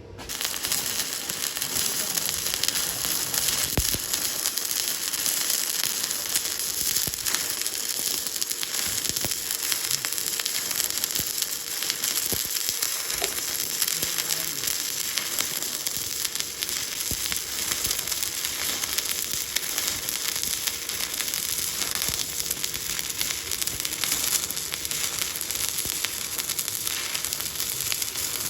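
Stick-welding arc crackling and sizzling steadily as an electrode lays a vertical fillet weld (3F position). The arc strikes suddenly at the very start and burns without a break.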